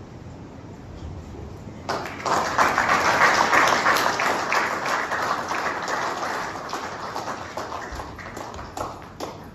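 Audience applauding: the clapping starts about two seconds in, swells quickly, then gradually dies away toward the end.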